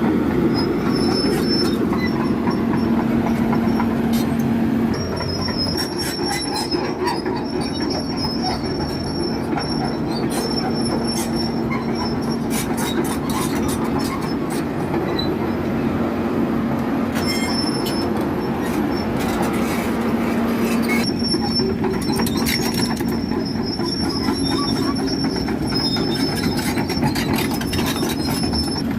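Heavy machinery running steadily with a constant low hum, a high thin squeal that comes and goes, and scattered clicks and knocks.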